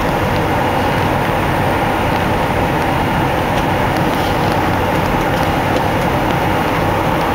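Steady cabin noise inside a Boeing 747 on final approach, from the jet engines and the airflow past the fuselage.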